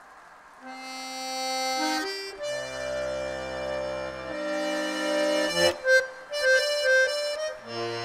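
Button accordion playing a tune. About half a second in it starts with held chords over low bass notes, plays a quick run of short, detached notes near the middle, then goes back to held chords.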